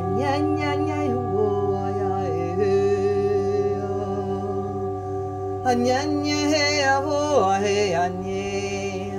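Singing bowls ringing in steady, sustained tones, overlaid in several phrases by a voice chanting wordless light-language syllables that slide up and down in pitch.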